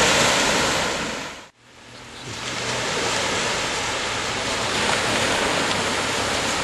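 Steady rushing noise of sea surf and wind. It fades out about a second and a half in, then comes back and holds steady.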